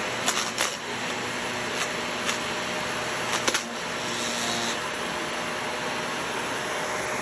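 Shark upright vacuum cleaner running steadily over carpet, its motor and airflow making an even whooshing hum, with about six sharp ticks in the first four seconds as bits of grit are sucked up through the head and tube.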